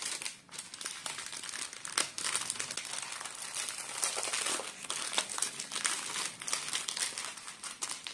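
Thin clear plastic bag crinkling and rustling as a rolled diamond painting canvas is slid into it and handled, with many irregular sharp crackles.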